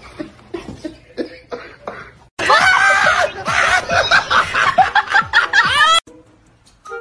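People laughing: soft chuckles at first, then a few seconds of loud, hearty laughter that stops suddenly about six seconds in.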